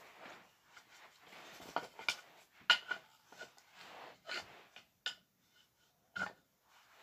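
Wooden toy train track pieces knocking and clacking together as a wooden tunnel piece is handled and set down, with soft rustling between the knocks. The loudest knock comes a little under three seconds in.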